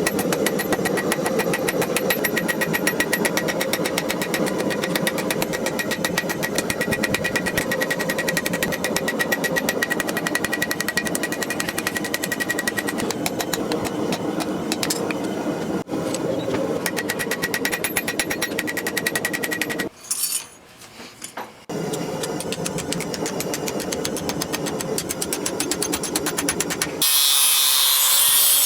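Rapid, evenly paced hammering on hot railroad-spike steel, several blows a second, with a short pause about twenty seconds in. Near the end, a loud hiss.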